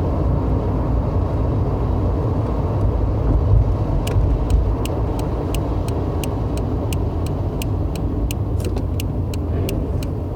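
Car driving, with a steady low rumble. From about four seconds in, a regular sharp ticking sets in, about three ticks a second.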